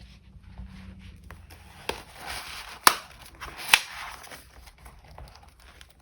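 Paper collage materials being handled: soft crinkling and rustling of paper, with two sharp taps about a second apart in the middle.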